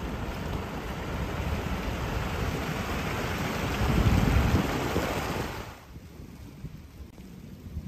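River water rushing and splashing as it pours over a low concrete edge. The rush swells about four seconds in, then stops abruptly before six seconds, leaving only a faint low rumble.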